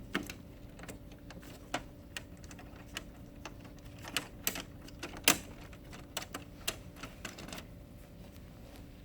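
Scattered sharp clicks and knocks of plastic printer parts being handled and snapped back into place in an HP LaserJet printer, the loudest about five seconds in.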